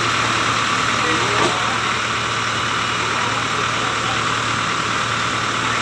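Fire truck engine idling steadily, a constant low hum under an even noise.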